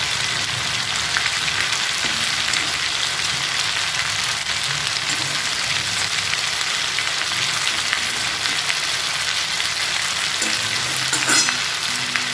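Chicken pieces in thick spiced masala sizzling steadily in a pan, a continuous crackling hiss of the chicken kosha being fried down.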